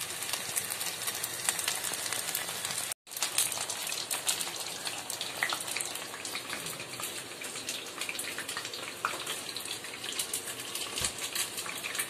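Momos deep-frying in hot oil in a pan: steady sizzling with dense fine crackling, broken by a brief dropout about three seconds in.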